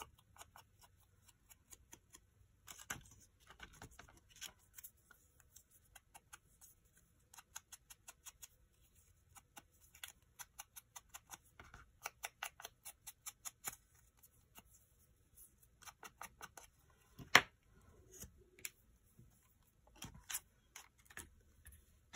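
Faint, quick taps of a mini ink blending tool being dabbed around the edges of a small paper label to ink them, in runs of several taps a second, with one sharper knock about three-quarters through.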